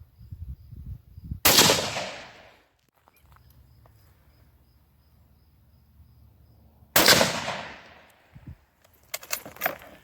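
Two rifle shots about five and a half seconds apart, each a sharp crack followed by an echo that dies away over about a second, then a quick run of clicks and rattles near the end.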